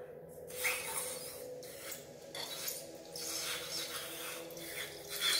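Latex balloon squeezed and rubbed in the hand as white slime is pushed out of it into a plastic bowl: irregular rubbery rustling and squeaks, starting about half a second in.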